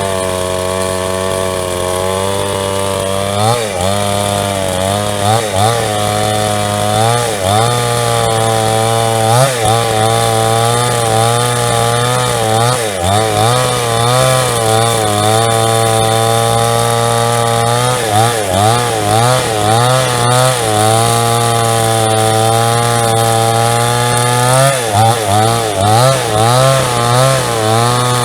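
Two-stroke JCK chainsaw with a 22-inch bar running under load while cutting through wood. The engine pitch dips and recovers again and again as the chain bites, with long steadier stretches in between.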